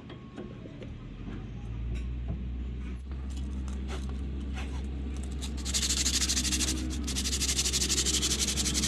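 Workshop machine noise: a steady low hum, then from about six seconds in a loud, rapid rattling hiss with a brief break about a second later.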